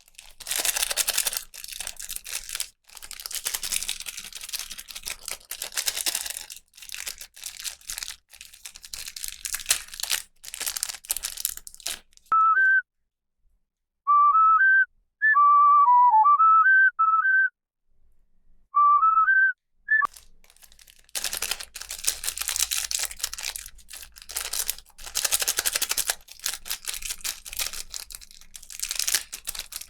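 Plastic packaging crinkling and crackling as a toy is unwrapped, then a short tune whistled in clear pure notes from about twelve to twenty seconds in, and after that more crinkling.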